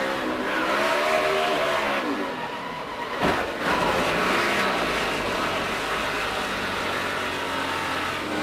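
NASCAR Cup race cars' V8 engines running at racing speed, their pitch rising and falling as cars go by. A sudden loud burst comes about three seconds in, then a steady engine drone.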